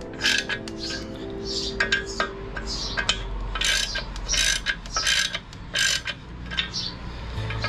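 Socket ratchet worked in short strokes, each swing a quick run of clicks, as the clutch pressure-plate bolts are tightened. Background music plays underneath.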